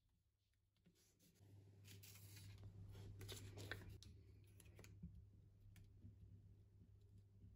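Faint rustling and scratching of paper strips being handled and rubbed flat onto a kraft-paper envelope, busiest in the first half, with small clicks.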